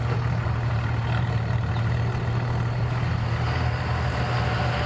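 An engine idling steadily with a low, even hum. A fainter higher engine note joins in about three and a half seconds in.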